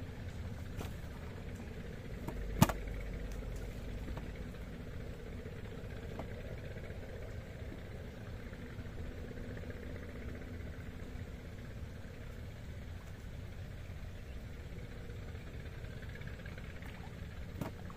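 Steady rushing of river water, with a sharp click about two and a half seconds in and a fainter one near the end.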